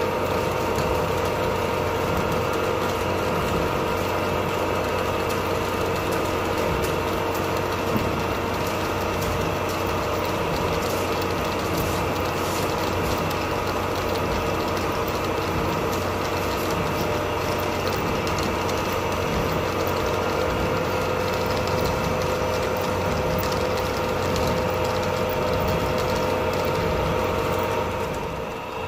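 Paper-making machine running steadily: a constant mechanical hum with several steady tones held throughout.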